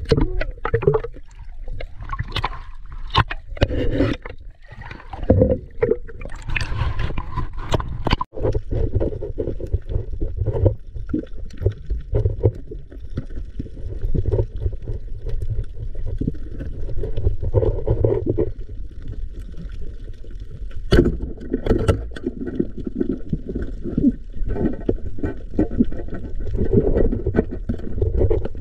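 Muffled water sounds: low gurgling and sloshing with scattered knocks and scrapes.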